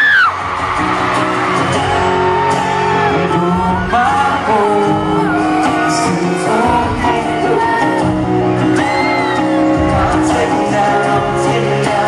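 Live acoustic duet in a large arena: strummed acoustic guitars under singing voices, with a high scream from the crowd right at the start.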